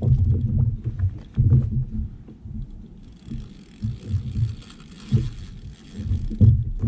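Spinning reel being cranked against a hooked fish on heavy gear, with repeated low thumps and rumbles of handling and kayak-hull noise, one every second or so. A soft hiss comes in from about three to five seconds in.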